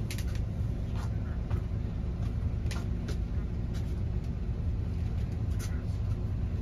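Steady low engine rumble heard from inside a bus, with scattered light clicks and rattles.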